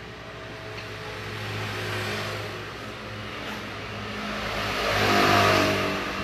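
An engine running with a steady low hum, growing louder to a peak about five seconds in and easing off near the end.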